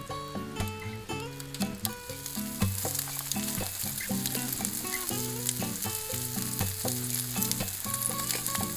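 Pork rolls sizzling and crackling as they fry, the sizzle growing stronger about two seconds in, over background music with a clear melody.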